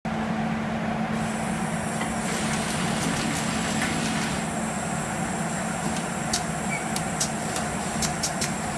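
FOREL insulating-glass production machine running: a steady machine hum with a constant low tone. An airy hiss comes in about a second in, and a handful of sharp clicks follow near the end.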